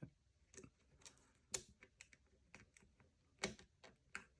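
Small irregular metallic clicks of a thin steel lock pick and tension wrench working the pins of a five-pin cam lock, scattered and faint, with louder clicks about a second and a half in and again at about three and a half seconds.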